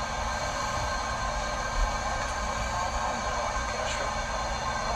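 Steady hum and hiss of machinery, with several fixed high tones held throughout, and a brief low bump about two seconds in.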